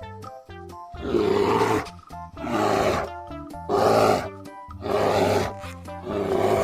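Brown bear roaring again and again, about five roars a little over a second apart, over background music.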